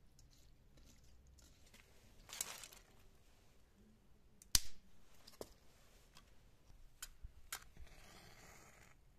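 Thin dry twigs snapped by hand: a few sharp cracks, the loudest about halfway through, with softer snaps after it and a short scraping near the end.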